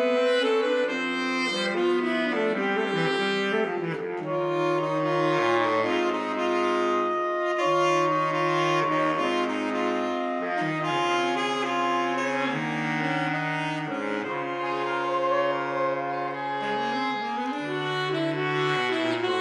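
Saxophone quartet (soprano, alto, tenor and baritone) playing in close harmony: held chords, with the baritone saxophone moving underneath as the bass line.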